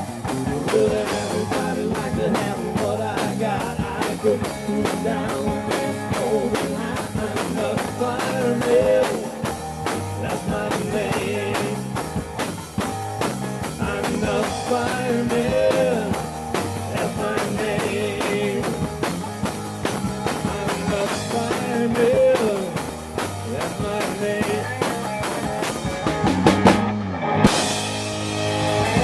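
Live rock band playing an instrumental break: a Telecaster-style electric guitar played through a Bugera amp plays a lead with bent notes over bass and a drum kit with cymbals, keeping a steady beat.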